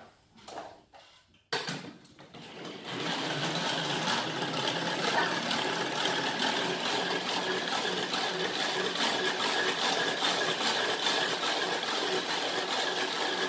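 Hand-cranked geared whisk in a lidded plastic container whirring steadily as it beats egg whites. It starts about a second and a half in and builds to a steady whirr.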